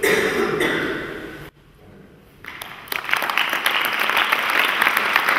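Audience applause that starts about halfway in, swells quickly and settles into steady clapping, after a man's voice is heard briefly at the start.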